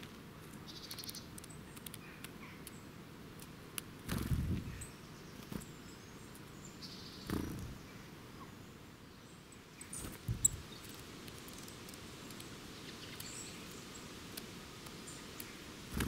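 Short wing flutters of small woodland birds, a Eurasian nuthatch among them, taking off from and landing at a scatter of seed: about four seconds in, about seven seconds in, around ten seconds and again at the very end, with faint high chirps in between.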